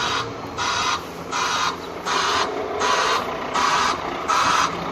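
Concrete mixer truck running, with an even, rhythmic swishing about twice a second over a steady low hum.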